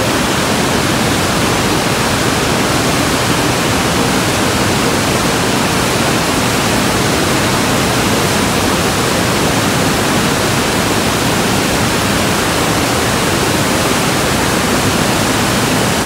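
Trümmelbach glacier-meltwater falls rushing and churning through a carved rock chute: a loud, steady, even roar of white water.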